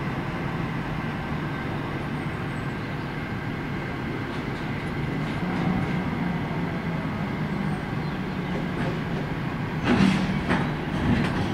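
EP2K electric locomotive running with a steady hum as it eases onto a passenger train to couple. About ten seconds in comes a loud metallic clank with two lighter knocks after it, the couplers meeting.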